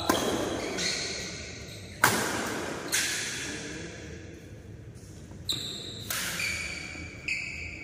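Badminton rackets hitting a shuttlecock in a fast doubles rally: sharp smacks at uneven intervals, about seven in all, echoing in a large hall. Short high squeaks come between some of the hits.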